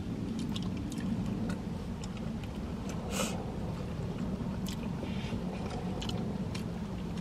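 People chewing and handling burger and fries, with small wet clicks and a short paper rustle about three seconds in, over a steady low hum inside the car.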